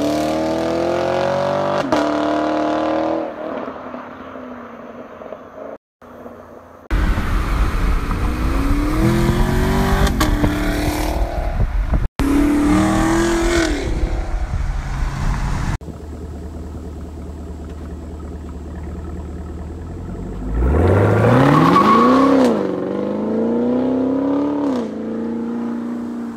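Chevrolet Camaro SS 6.2-litre V8 on its stock exhaust, heard in several short clips: hard acceleration runs with the engine note climbing in pitch, a loud low rumble, then a steadier drone. Near the end the engine revs up quickly and drops back.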